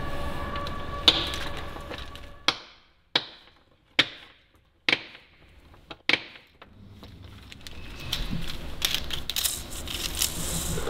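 Steady workshop machinery hum fading out, then about six sharp metallic clicks and taps, each with a short ringing tail, as steel parts such as a caged roller thrust bearing are handled and set down on a workbench. Near the end a quicker run of light metal clinks and rattling builds up.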